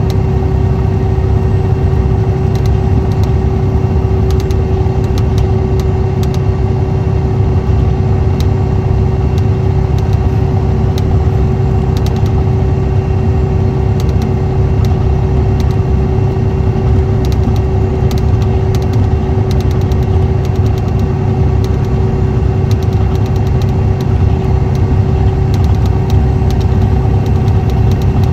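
Cummins ISX 11.9-litre six-cylinder diesel of an MCI D4500CT coach running at a steady, unchanging pitch: a low drone with a steady whine above it and light scattered ticks.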